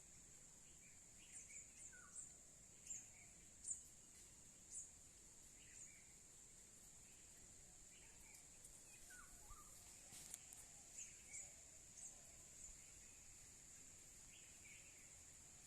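Faint jungle ambience: a steady high-pitched insect drone, with short bird chirps coming in small clusters early on and again past the middle.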